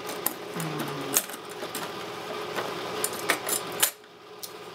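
Metal oscillating multi-tool blades and their packaging being handled: scattered light clicks and clinks, about eight in all, some sharp.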